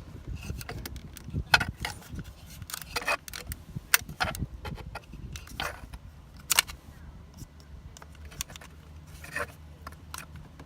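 Plastic trim tool prying at a car's window switch and its plastic housing in the door armrest: irregular sharp clicks and scrapes, about nine of them, over a low steady hum.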